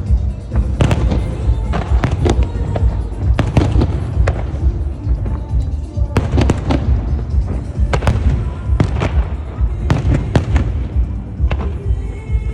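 Fireworks display going off in quick succession: many sharp bangs and crackles over a deep rumble, with music playing along with the show.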